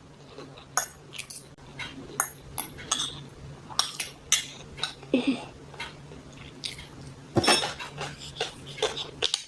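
Cutlery clinking and scraping against a plate or bowl during a meal, in irregular short taps, over a faint steady low hum.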